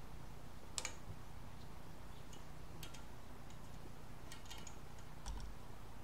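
A few scattered light clicks and ticks as the direct-drive motor's stator and its copper winding wire are handled by hand, over a faint steady hum.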